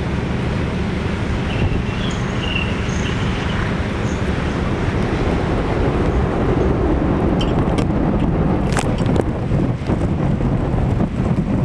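Fishing boat's engine running steadily as the boat moves along the quay, with wind on the microphone. A few short high-pitched chirps come in the first few seconds, and a sharp knock about three-quarters of the way through.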